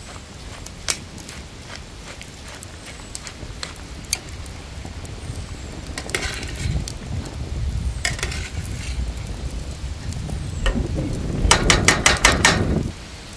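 Metal kitchen tongs stirring a pan of simmering onion sauce on a charcoal grill, clicking and scraping against the pan, with a quick run of clicks near the end. A low rumble runs under the stirring and stops just before the end.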